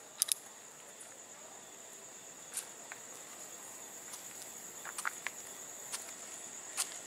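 Crickets chirping: a steady high-pitched trill, with a few faint scattered clicks over it.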